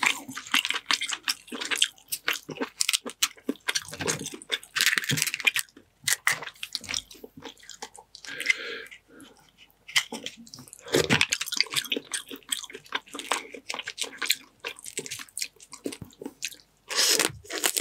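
Boiled blue crab being cracked and pulled apart by hand: its shell crunching and snapping amid wet squelching of the sauce-coated meat, in bursts of crackling with short pauses.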